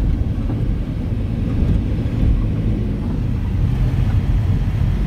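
Steady low rumble of a moving car's engine and tyres on the road.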